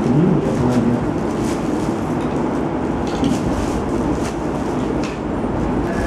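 Steady mechanical noise, as of machinery running, with a few light clinks of stainless steel latch parts being handled.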